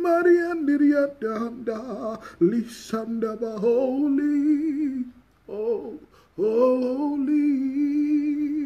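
A man singing solo and unaccompanied in a worship song, with long held notes and two short breaths near the middle.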